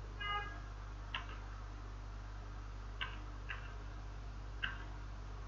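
Computer mouse clicking four times, single sharp clicks at uneven gaps, over a low steady electrical hum. A brief pitched sound comes just at the start.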